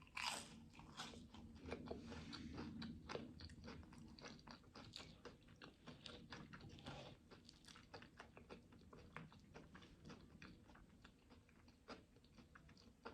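Quiet close-up chewing: irregular small wet mouth clicks and smacks of someone eating.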